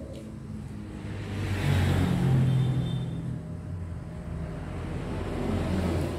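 A motor vehicle passing by, its engine growing louder from about a second and a half in, peaking, then fading away, with a low engine hum throughout.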